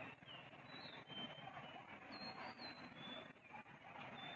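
Faint jungle ambience with several short, thin, high chirps scattered through it.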